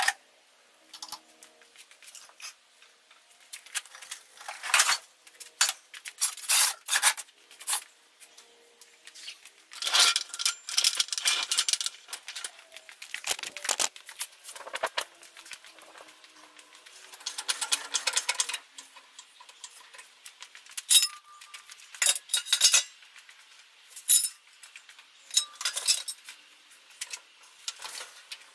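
Irregular metallic clinks, clatters and rubbing as welding gear is handled and stowed on its cart, with a steel floor jack being worked near the end.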